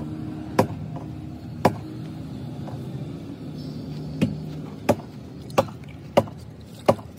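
Hammer blows: seven sharp strikes, two in the first couple of seconds and then, after a pause, five in a steady run about two-thirds of a second apart, over a steady low hum.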